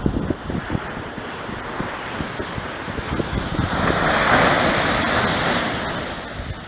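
Ocean surf breaking on the shore: the rush of a wave swells to a peak about four seconds in and then eases. Gusts of wind buffet the microphone.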